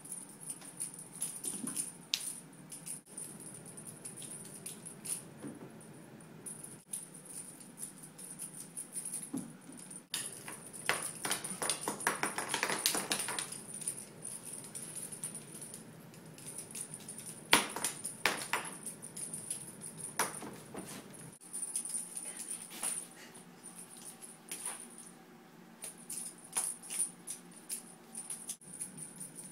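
Cat toys rattling and jingling as they are batted about, with scattered light clicks and knocks. A dense bout of rattling comes about halfway through.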